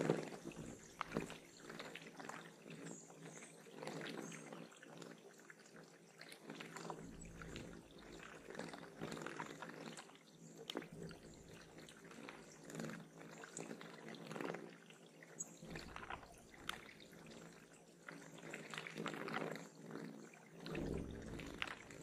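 Water trickling and splashing at a bird pond, in irregular bursts, with a few faint high bird chips.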